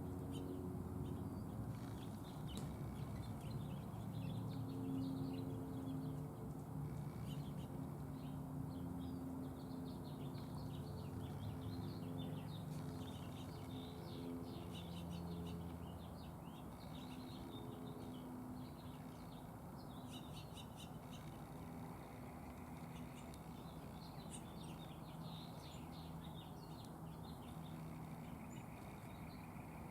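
Many small birds chirping and twittering in quick, overlapping calls, over a low steady hum.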